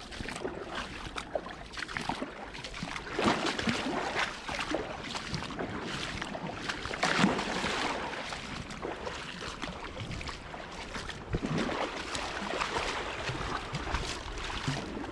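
Seawater washing and slapping against the seafront in a high-tide flood, in irregular surges, with wind buffeting the microphone as a low rumble.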